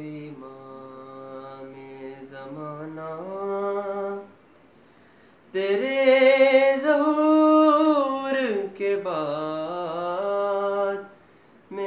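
A young man sings a devotional manqabat unaccompanied, in long held notes that slide and ornament. He pauses about four seconds in, then comes back with a louder, higher phrase, and pauses again just before the end.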